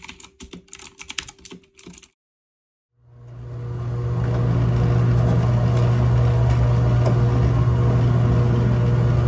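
Keyboard-typing sound effect: a quick run of key clicks for about two seconds. After a second of silence, a loud steady low hum fades in and holds.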